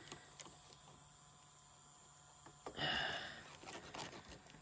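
Brief whirring buzz from the Losi LMT RC truck's steering servo about three seconds in, as the front wheel is turned by hand; otherwise quiet, with a faint steady hum.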